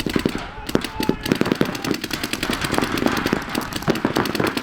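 Rapid paintball marker fire, several markers shooting quick strings of shots at once.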